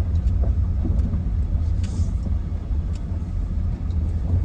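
Car running at low speed, a steady low rumble with a few faint ticks.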